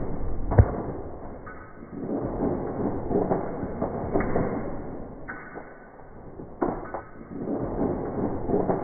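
A sharp thump less than a second in, then a boy yelling and shrieking as a dog yanks out his loose molar.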